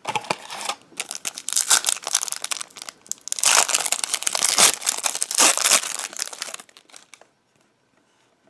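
Foil wrapper of an O-Pee-Chee Platinum hockey card pack crinkling and tearing as the pack is pulled from the box and ripped open by hand, loudest in the middle and stopping about seven seconds in.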